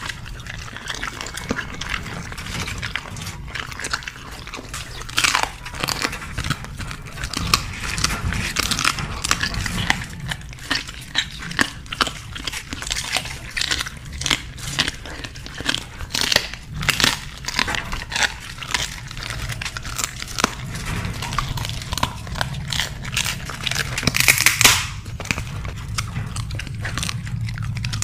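Dogs chewing raw leafy vegetables, with many irregular crisp crunches and bites, one louder crunch near the end.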